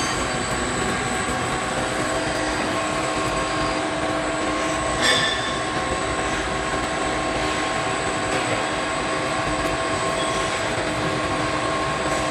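Industrial machinery running steadily: a dense mechanical noise carrying several steady tones, with a brief sharp knock about five seconds in.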